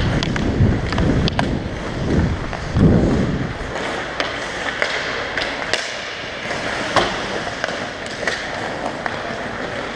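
Hockey skates scraping and gliding on ice, with heavy rumble from air rushing past a helmet-mounted camera, for the first three or four seconds. Then the rumble drops away, leaving the rink's steady background and scattered sharp clacks of sticks and puck, one louder about seven seconds in.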